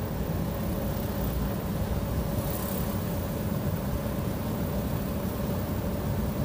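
Golf cart riding along: a steady, even running noise with a faint steady hum, with no starts, stops or knocks.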